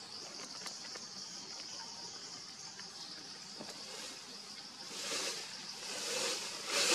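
Insects buzzing steadily in the forest, a high, even drone. Louder noisy bursts come in from about five seconds in.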